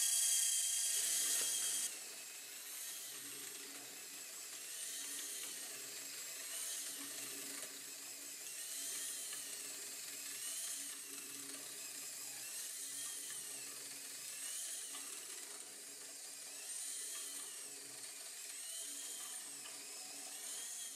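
Small 1:50 gear motor whining as it drives the plastic gears and linkages of a 3D-printed walking spider robot. The whine is loud at first, drops in level about two seconds in, then rises and falls in pitch about every two seconds with each stride. The gearing is running dry, which the maker says would need some oil.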